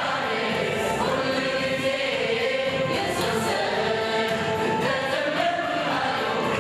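Mixed choir of men and women singing a Catholic hymn (mezmur), holding long sustained notes.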